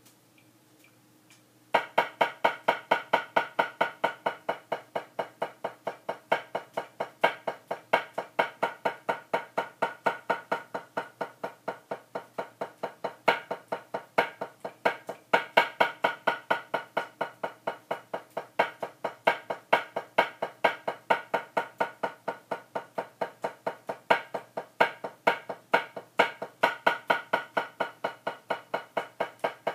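Wooden drumsticks striking a practice pad in a fast, even stream of strokes that starts about two seconds in, with groups of louder accented strokes among softer taps.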